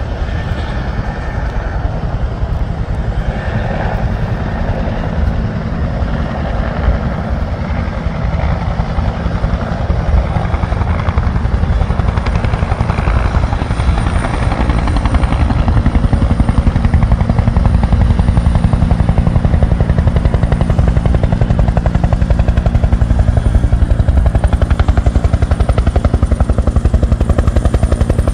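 Bell UH-1 "Huey" helicopter flying low, its main rotor beating steadily with a thin high whine over it. It gets louder about halfway through as it comes closer and stays loud.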